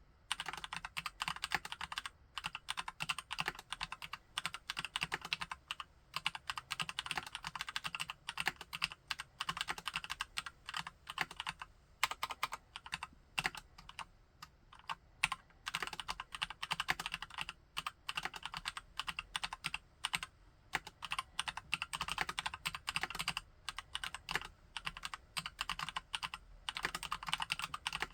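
Typing on a Keychron C1 tenkeyless mechanical keyboard with Gateron Brown tactile switches: fast runs of key clacks broken by brief pauses.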